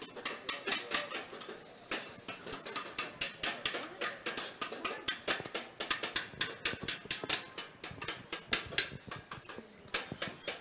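Coppersmith hammering copper: rapid, irregular light hammer taps, several a second.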